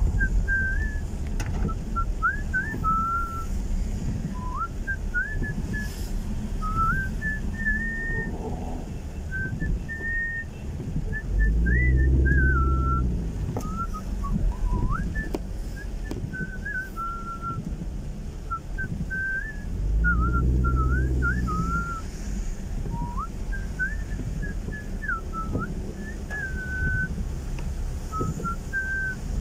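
A person whistling a wandering tune in short notes and slides inside a moving car. Low road and engine noise runs underneath and swells louder twice.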